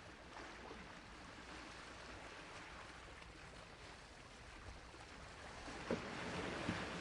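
Sea waves washing on a shore: a steady hiss of surf that swells near the end, with a couple of small splashy clicks as the wash rises.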